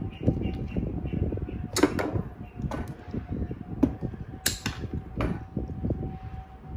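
A run of sharp clicks and clacks from a hand cable cutter and stiff red cable being handled, the cutter's jaws opened and set on the wire, over low handling rumble.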